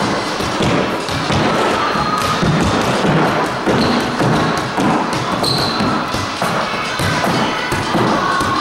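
Soccer ball being juggled: repeated thuds as it is kicked off the feet and bounces on a wooden floor, with music underneath.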